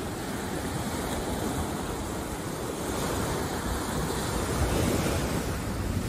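Small waves breaking and washing up a sandy beach in a steady hiss of surf, swelling to its loudest a little past the middle and easing near the end.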